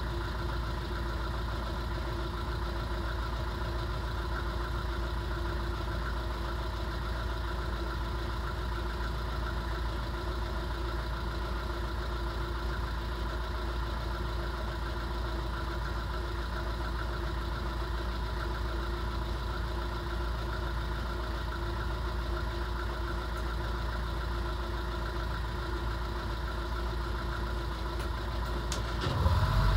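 Motor cruiser's engine running steadily, heard from inside the boat's wheelhouse at the helm. It gets louder and changes about half a second before the end.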